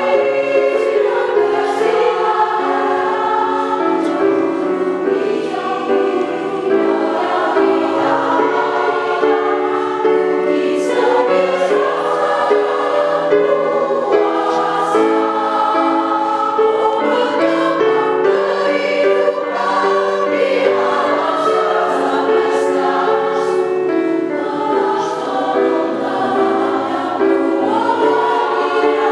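Choir singing in several parts, held chords moving from note to note without a break.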